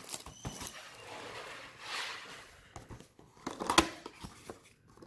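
Hands handling a cardboard trading-card mega box and its foil packs: soft rustling and a brief scrape about two seconds in, then a few sharp taps or clicks of cardboard a little after three seconds.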